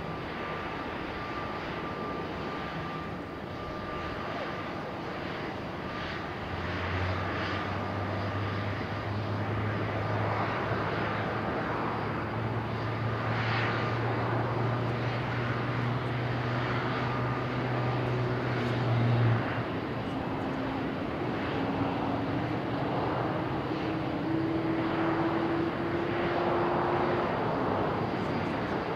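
Jet airliner engines running. Under a continuous hum, a low drone stops abruptly about two-thirds of the way through, followed by a whine that slowly rises in pitch.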